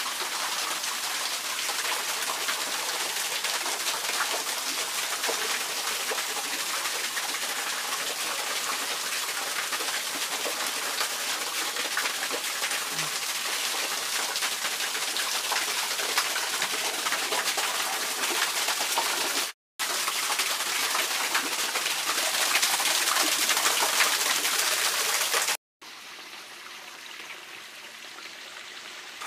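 Waterfall splashing steadily onto rocks: a dense, even hiss of falling water. It cuts out briefly twice, and is quieter over the last few seconds.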